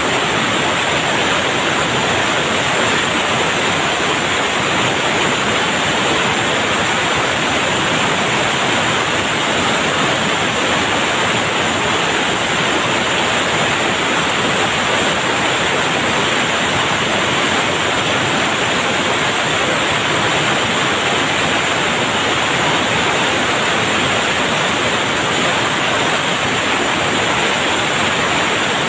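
Steady, loud hiss of cold oxygen vapour venting and rushing through the valves and hose of a liquid oxygen tank trailer during unloading.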